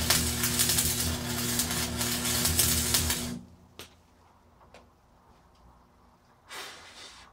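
Arc welding: the arc crackles and sputters steadily for about three and a half seconds over the welder's steady hum, then stops. A couple of faint clicks follow, and a short noisy burst comes near the end.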